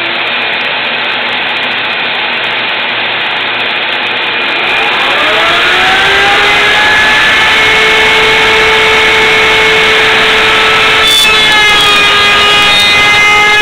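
Kobalt electric wood router with a 3/8-inch round-over bit running at full speed, a loud steady whine over motor noise. Its pitch rises about five seconds in and then holds steady.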